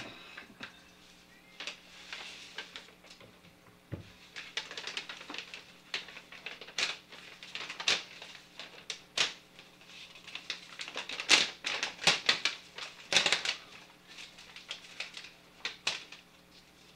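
Paper takeout bag and plastic carrier bag rustling and crinkling in irregular bursts as they are handled and opened, with a soft thump about four seconds in.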